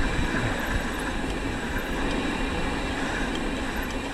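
Steady rumbling noise of a mountain bike being ridden: tyres rolling over the ground with wind on the camera microphone.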